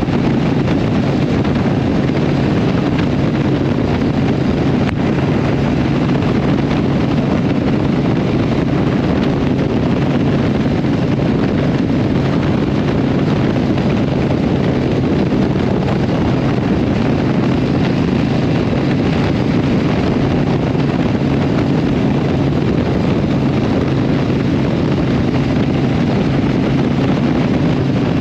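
Harley-Davidson Iron 883 Sportster's air-cooled V-twin running through Vance & Hines exhaust, cruising at a steady highway speed of about 53 mph.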